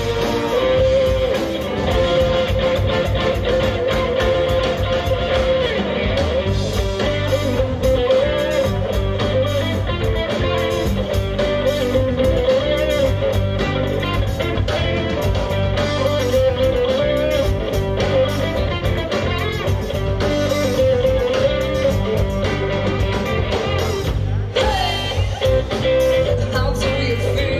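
Live band playing loud electric music: electric guitars, bass guitar and drums with a fiddle, a wavering lead melody carried over a steady beat.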